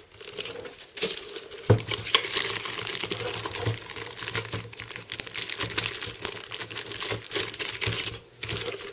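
Clear plastic zip bag crinkling and rustling as it is pulled open and handled, starting about a second in, with light clicks of the small accessory parts and screws inside.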